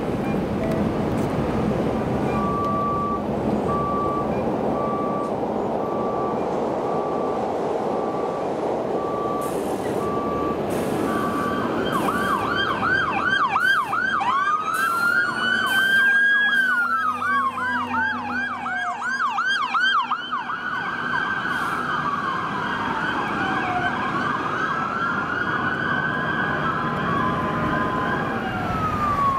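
Emergency-vehicle electronic sirens responding over heavy truck-engine and traffic rumble. For the first ten seconds or so there is mostly engine and road noise with a short beep repeating about once a second. Then the sirens start, first a fast yelp and then a slow rising-and-falling wail, with more than one siren sounding at once.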